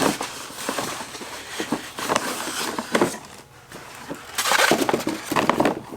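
Rustling of packaging with small knocks and clicks as a new computer monitor is unboxed and handled, with a louder burst of rustling near the end.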